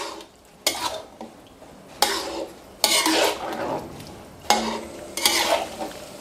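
A metal spatula scrapes and turns chicken wings in an aluminium wok of thin chilli-herb sauce, in about six uneven strokes. Between the strokes the sauce keeps up a soft sizzle over medium heat.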